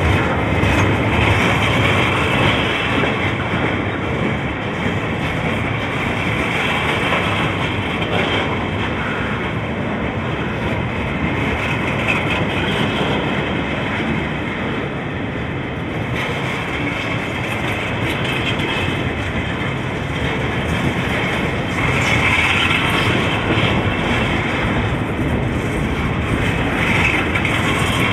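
CSX freight train cars rolling past, steel wheels clattering steadily over the rails, growing louder about two-thirds of the way through.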